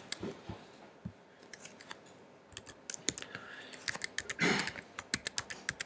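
Computer keyboard typing: a run of key clicks as a username and password are entered, sparse at first and quicker from about halfway, with a brief murmured voice about four and a half seconds in.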